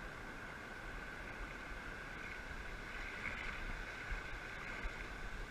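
Steady, even rush of surf washing over the shallows.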